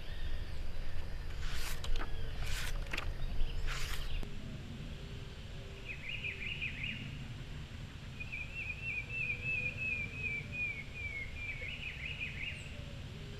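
Outdoor ambience with a steady low rumble, a few brief rustling noises in the first four seconds, then a songbird singing a run of quick chirps and a trill that falls in pitch.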